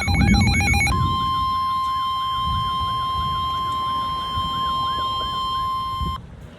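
Emergency alert tones of a NOAA Weather Radio warning: a rapidly warbling electronic tone for about the first second, then the steady single-pitch 1050 Hz weather radio alarm tone with a fainter warble beneath it, cutting off about six seconds in. This is the attention signal that comes just before a severe thunderstorm warning is read out.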